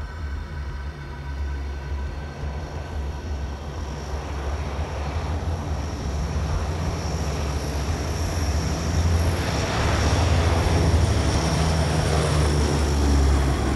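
Four Allison T56 turboprop engines of a NOAA Lockheed P-3 Orion running at high power as the aircraft flies low and close. The sound is a deep steady drone with a thin high whine, growing louder through the second half.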